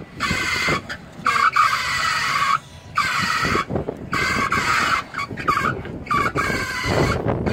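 Toyota Land Cruiser crawling over boulders, giving a string of high-pitched squeals, some brief and some about a second long, over a low engine rumble that grows louder near the end.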